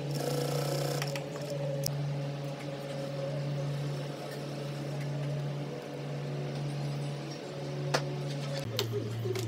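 An industrial sewing machine stitching briefly at the start, over a steady low hum that drops in pitch near the end.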